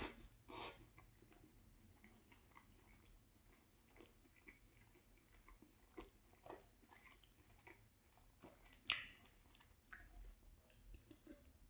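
A person chewing and biting into a loaded chicken sub sandwich, faint and irregular, with a louder bite just after the start and another about nine seconds in.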